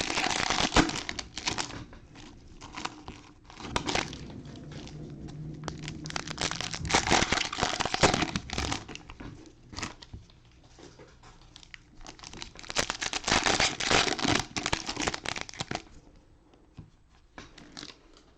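Cellophane wrappers of trading card packs crinkling and tearing as the packs are opened, in several bursts of a second or two with quieter gaps between.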